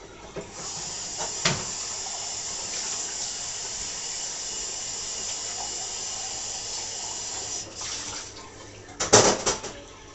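Kitchen tap running into a sink in a steady stream for about seven seconds, with a single knock about a second and a half in. A loud clatter of knocks comes shortly after the water stops.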